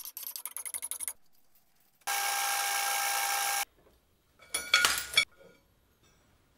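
Steel on steel as a welded steel box is turned over and set down on a cast-iron milling machine table: a rapid run of clicks at the start, a steady scraping noise for about a second and a half that stops abruptly, then a short metallic clatter about five seconds in.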